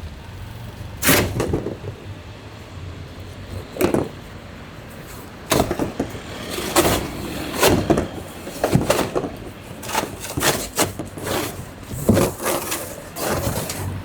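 Irregular knocks, clanks and scraping of hands-on work, some in quick clusters, over a steady low hum.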